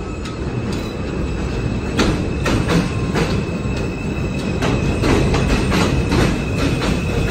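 R160 subway train running into an elevated station on steel track, with a steady high-pitched wheel whine and wheels clattering over the rail joints, the clatter starting about two seconds in and coming faster as the cars draw alongside.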